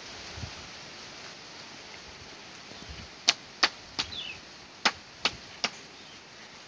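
Six sharp knocks in two quick runs of three, as a long bamboo pole is worked up among coconut palm fronds, over a steady outdoor hiss.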